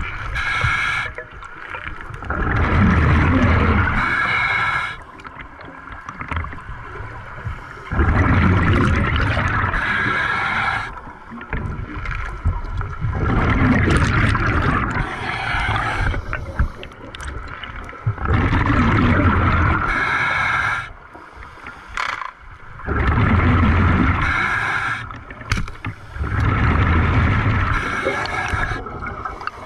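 A diver breathing underwater through a scuba regulator: a breath every five seconds or so, each a hiss and a burble of exhaled bubbles lasting two to three seconds.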